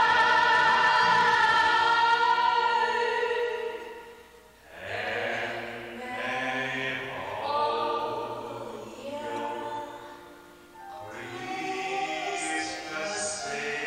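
A woman singing live into a hand microphone over musical accompaniment. A long held note fades out about four seconds in, then she sings on in shorter phrases.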